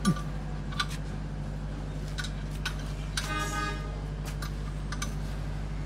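A vehicle horn toots once, briefly, about three seconds in, over a steady low hum. A few faint clicks come and go.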